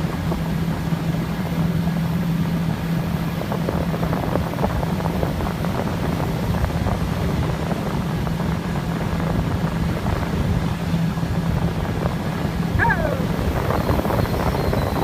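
Motorboat engine running steadily at speed, its drone over the rush of water and wind. About 13 seconds in, a brief pitched sound glides downward.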